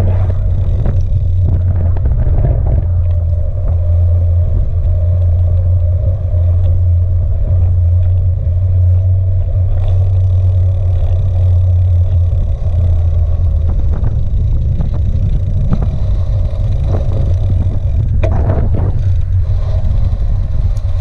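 Wind buffeting a bike-mounted action camera's microphone, with the rumble of tyres rolling on a tarmac road: a loud, steady low rumble.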